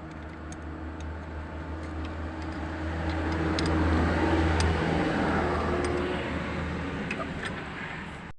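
A motor vehicle's engine running and passing close by, its noise swelling to a peak about halfway and then fading, over a steady low hum, with a few faint clicks.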